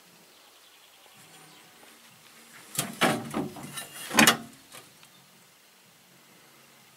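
A brief clatter of metal knocks and clanks, beginning about three seconds in and lasting about a second and a half, with two loudest strikes, then a couple of light ticks.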